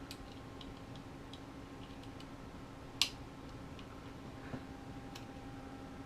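Scattered small plastic clicks and taps from hands working connectors and wiring into a drone's plastic shell, with one sharp click about three seconds in, over a steady faint hum.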